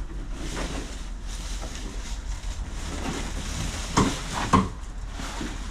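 Wind rumbling on the microphone, with two short knocks about four seconds in.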